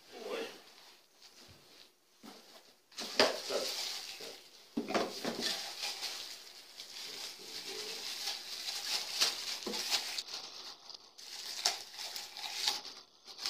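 Plastic packaging rustling and a cardboard box being handled, with a few light knocks, as an angle grinder and its bag of accessories are unpacked.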